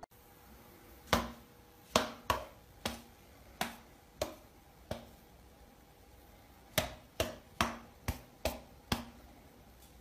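Finger snaps: about a dozen sharp snaps at an uneven pace, in two runs with a pause of about two seconds in the middle, each with a short ring in a small tiled room.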